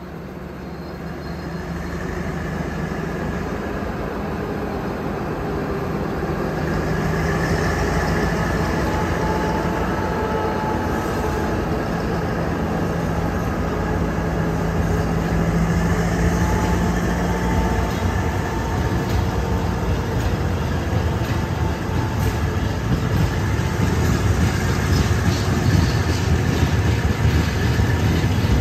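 Alsthom diesel locomotive and its train running on the rails, with a steady engine drone. It grows louder over the first several seconds and again near the end.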